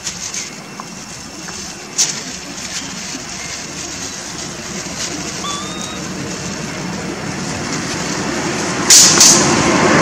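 Motor vehicle engine noise that grows steadily louder, with a sharp click about two seconds in and a louder pair of knocks near the end.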